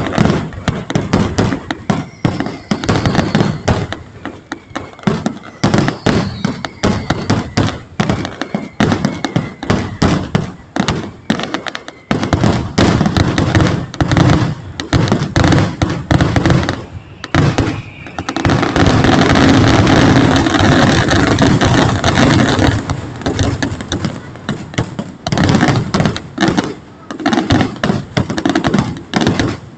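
Aerial fireworks finale: a dense, rapid barrage of bangs and crackles. There are falling whistles in the first several seconds. About 18 seconds in, the bangs run together into one continuous crackling rumble for some four seconds.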